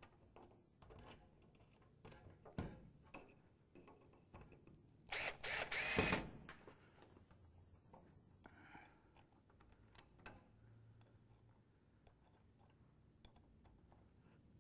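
Cordless drill driving a wood screw, in one short run of about a second starting about five seconds in, its motor whine rising slightly. Faint clicks of handling are heard around it.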